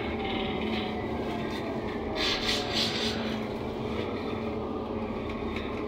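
Inside a moving NefAZ 5299 city bus: the diesel engine drones steadily under road and body rumble, with a brief hissing rattle about two seconds in.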